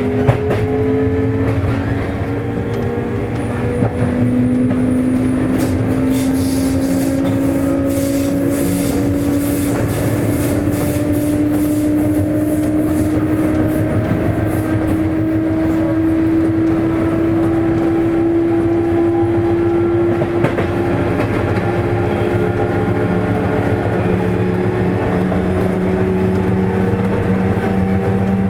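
Sotetsu 8000 series electric train heard from inside a motor car: its Hitachi IGBT-VVVF inverter and traction motors whine, the pitch rising slowly as the train gathers speed, over steady wheel and rail rumble. After a short dip in level, the whine picks up about four seconds in and changes near two-thirds of the way through. A run of sharp clicks from the wheels on the rails comes about a quarter to two-fifths of the way in.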